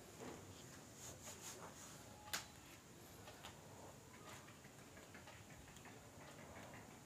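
Faint, irregular ticking of an electric sewing machine stitching slowly along a neckline, with one sharp click a little over two seconds in.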